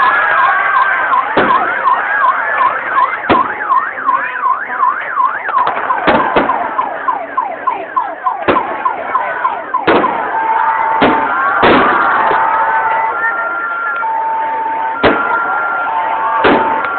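An electronic siren sounding over fireworks: a fast rising-and-falling wail, switching about ten seconds in to a two-tone high-low alternation. About ten sharp firework bangs go off through it.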